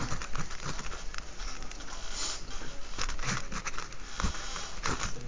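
Pen writing on paper: a run of short, irregular scratching strokes.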